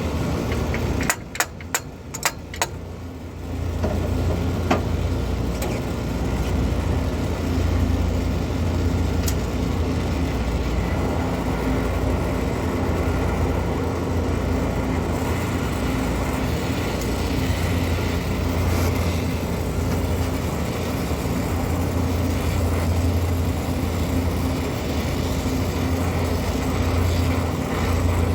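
Steady low machinery drone with a strong hum. A few sharp clicks and a brief dip in level come about one to three seconds in.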